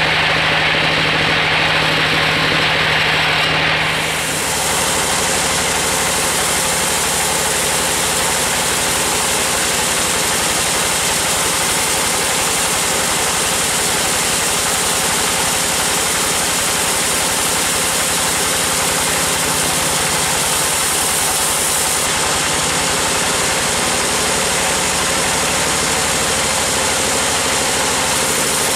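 Large band sawmill running with its blade cutting through a big timber: a loud, steady mix of saw noise and drive machinery. About four seconds in, the sound changes to a brighter, hissier cutting noise after a brief dip in loudness.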